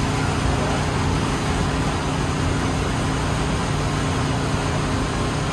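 Busy city street traffic: cars and taxis driving past, a steady wash of engine and tyre noise.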